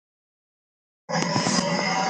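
Silence, then about a second in a film Tyrannosaurus rex roar sound effect starts abruptly, loud and held at a steady level.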